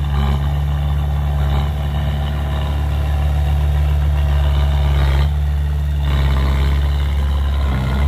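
Komatsu D20A crawler bulldozer's diesel engine running steadily as the dozer pushes a load of soil with its blade.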